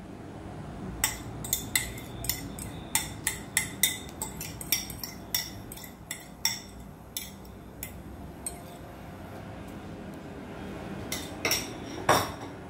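A fork clinking and scraping against a bowl in a quick irregular run of sharp clicks as a thick mixture is scraped out, with a few louder clinks near the end.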